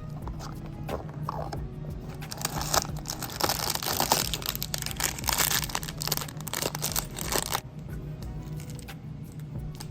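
Packaging being torn open and crinkled: a dense crackling rustle from about three seconds in until near eight seconds, with scattered small clicks around it, over background music.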